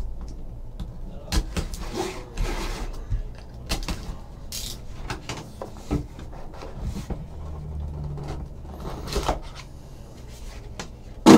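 A shrink-wrapped trading card box being slit open with a box cutter and handled: scattered rustles, taps and clicks of plastic wrap and cardboard.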